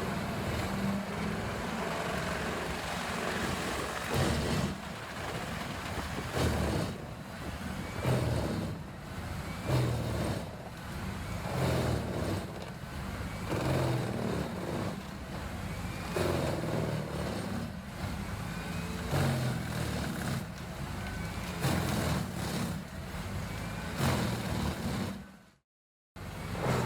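Vermeer HG6800TX horizontal grinder, driven by a 950 horsepower engine, running under load and grinding wood. Its steady low drone swells every second or two as material is chewed through, and the sound cuts out briefly near the end.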